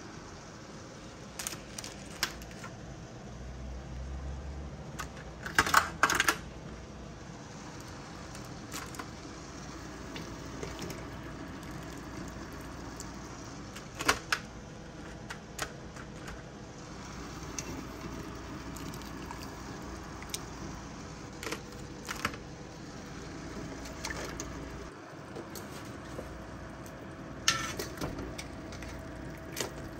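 Scattered metallic clinks and clanks as boiled crabs are lifted from the pot with metal tongs and dropped into a stainless steel pan, the loudest a quick cluster about six seconds in, over a steady hiss from the steaming pot.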